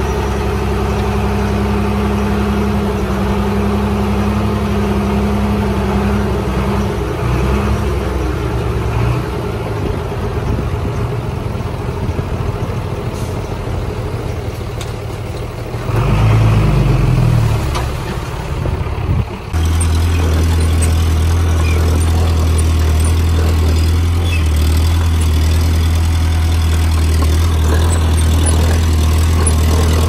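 Diesel engines of earthmoving machinery running, with one engine briefly revving up and back down about halfway through. The sound then changes suddenly to a steady, deeper engine note.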